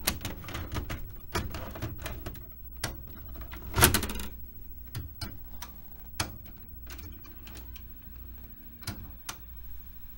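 VHS cassette pushed into a front-loading VCR, the deck's loading mechanism clicking and clunking as it draws the tape in and starts play, with the loudest clunk about four seconds in.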